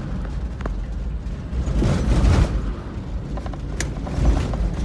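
Low rumble of a vehicle driving over a rough track, heard from inside the cab, with a few sharp knocks from the body.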